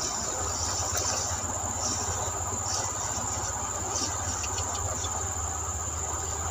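Insects calling in a steady, continuous high-pitched drone over a constant background hiss.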